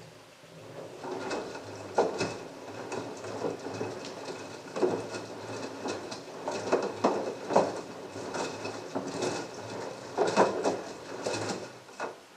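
LG front-loading washing machine's drum tumbling wet laundry during the soak stage: a low motor hum under repeated soft thuds and sloshing as the clothes drop through soapy water, with a few louder thuds. The tumble starts suddenly and stops just before the end, one turn period between the soak's pauses.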